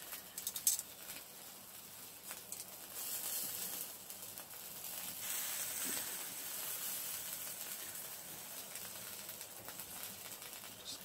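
Sausages sizzling on a wire grill over barbecue coals in a Hexi stove, a steady hiss that grows louder about three seconds in. A few clicks of metal tongs come near the start.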